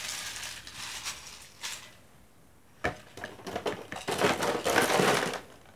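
Thin plastic snack packaging crinkling as it is handled, then dry crackers poured into a plastic jar, rustling and rattling. The pouring is the loudest part and lasts about two seconds near the end.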